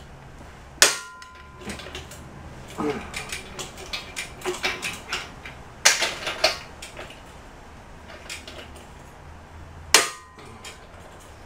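Large bolts on a pillow-block bearing cap breaking loose under a long torque wrench: three sharp metallic cracks, about a second in, near the middle and near the end, the first with a brief ringing tone. Lighter clinks of the wrench and socket come between them.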